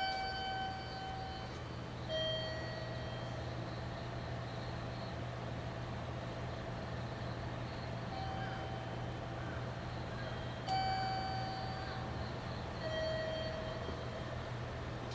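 Electronic two-note chime from platform loudspeakers: a higher note followed about two seconds later by a lower one, repeating several times. A steady low hum runs underneath.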